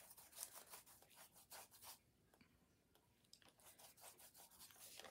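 Faint scratchy brushing of a chip brush spreading wallpaper adhesive over the bare cardboard of a board book, in quick repeated strokes, with a pause of about a second around the middle.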